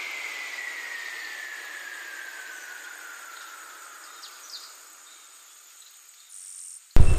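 Electronic background music fading out: a hissing sweep with one tone sliding slowly down in pitch, dying away to near silence.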